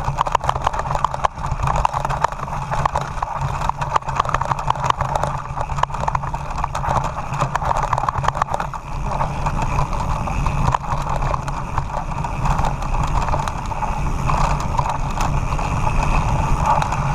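Mountain bike running fast down a rocky, gravelly track: tyres crunching over loose stones, and the bike rattling and clattering with every bump.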